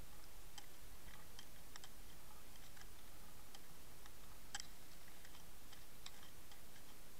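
Faint, irregular small clicks and ticks over a steady low hiss, heard through a camera underwater in a lake; the sharpest click comes a little past halfway.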